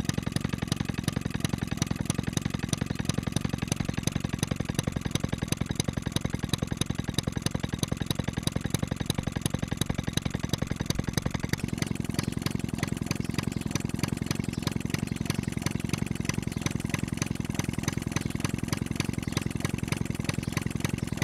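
1920s Jacobsen hit-and-miss engine running steadily, firing in a fast, even rhythm without gaps. Its tone shifts slightly about halfway through.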